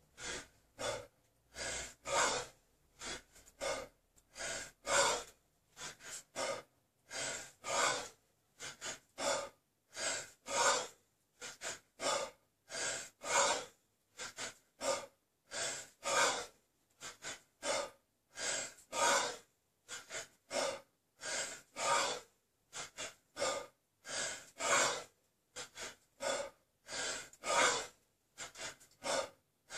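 A man breathing hard under heavy exertion: quick, forceful breaths in and out, a little under two a second, in a steady rhythm that runs on without a break.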